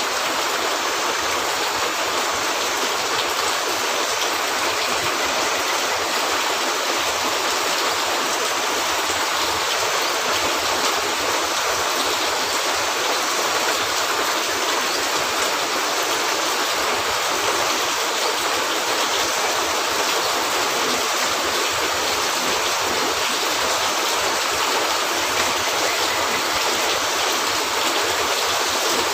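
Steady rain falling on a cabin roof, an even, unbroken hiss of water.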